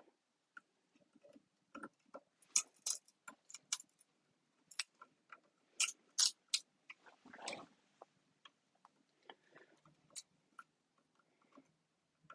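Sharp plastic clicks and snaps as a pry tool cracks the plastic top piece off the 18650 cells of a Tesla Model S battery module, coming in irregular clusters, with one longer, duller scrape about seven and a half seconds in.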